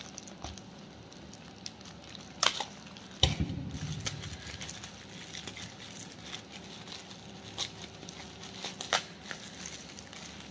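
Packaging being opened, with handling rustle throughout and a few sharp snaps, the loudest about three seconds in with a dull knock.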